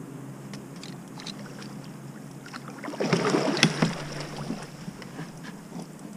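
A hooked carp splashing and thrashing at the surface as it is brought into the landing net, loudest about three to four seconds in, with scattered light clicks.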